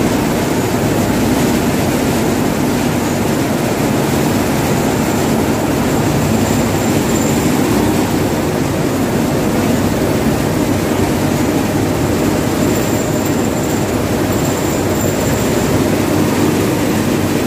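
Cotton roller gins running together in a ginning mill, a loud, steady mechanical din that does not let up.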